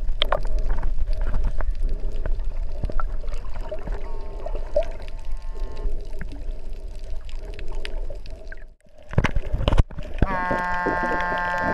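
Underwater sound through a submerged camera: a steady, muffled water rush with many scattered clicks and crackles. The sound briefly drops away, and then, near the end, a held humming tone with several pitches comes in, dipping slightly in pitch as it starts.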